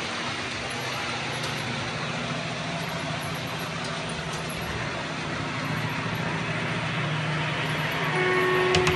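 A DCC sound-fitted OO gauge model train running, its sound decoder giving a steady engine drone. Near the end the horn sounds once for just under a second.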